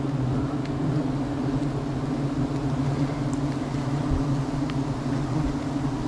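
A swarm of honeybees buzzing in a steady, even drone, stirred up as their wild hive is opened for its honey.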